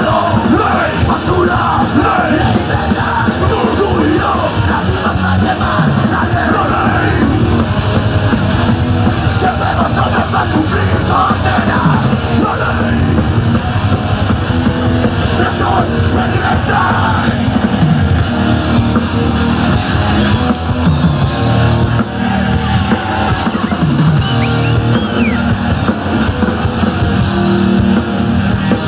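Loud live heavy rock band: distorted electric guitar, bass and drum kit playing a song without a break.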